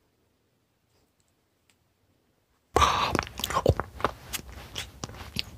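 Near silence, then about halfway through close-miked ASMR eating sounds start abruptly: loud chewing and biting with many irregular sharp crunches.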